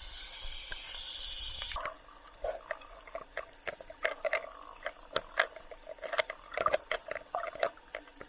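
Underwater sound from a camera held by a snorkeler. There is a steady hiss for about the first two seconds, then it drops away to irregular clicks and short bubbly gurgles.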